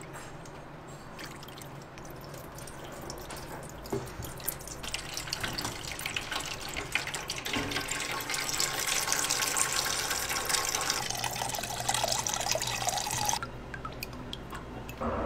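Melted butter being poured through a paper-towel strainer, trickling and splashing in thin streams into a steel pan. The pouring grows fuller and louder about five seconds in, then cuts off suddenly near the end, leaving fainter dripping.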